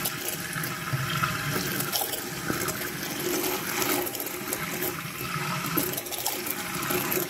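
Stick blender running on low, churning raw soap batter of oils and lye water in a stainless steel pot with a steady sloshing, liquid sound. The batter is being blended toward trace and is starting to thicken.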